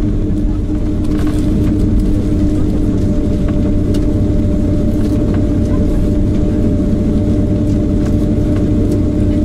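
Jet airliner's engines running at taxi power, heard inside the passenger cabin: a steady rumble with a constant two-note hum.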